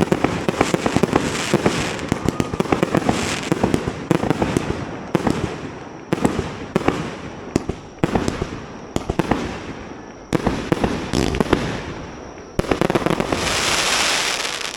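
Fireworks display: rapid crackling and popping bursts with heavier booms, coming in waves that swell and die away every couple of seconds. Near the end a loud hissing rush swells up and fades.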